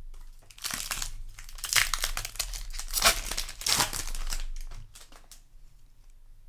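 Foil wrapper of a Magic: The Gathering booster pack being crinkled and torn open by hand: a run of crackling rustles that dies down about five seconds in.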